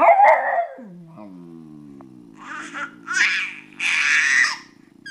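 A baby laughing in several short bursts, over a low, drawn-out sound that dips in pitch about a second in and then holds steady.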